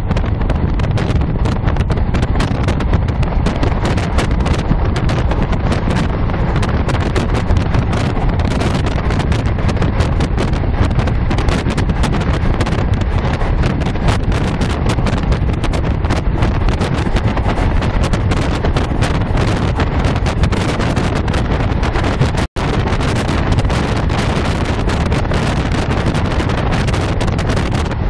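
Steady running rumble and rush of a diesel passenger train in motion, picked up by a phone's microphone with wind noise on it. The sound cuts out for an instant about two-thirds of the way through.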